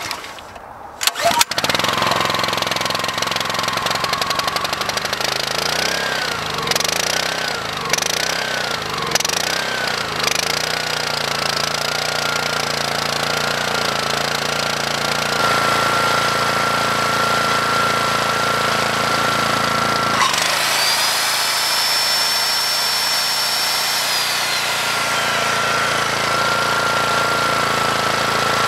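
A WEN 4,000-watt inverter generator's 212cc engine pull-started on choke from cold: a couple of sharp recoil pulls, then it catches about a second and a half in and runs. Its speed wavers a few times before settling into a steady run with a thin whine. Later a corded circular saw run off it spins up, runs for about three seconds and winds down.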